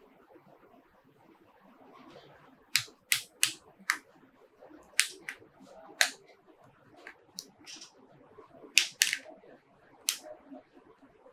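A smartphone's mid-frame being pried off by hand, its clips snapping loose one after another: about a dozen sharp, irregular clicks, some in quick pairs.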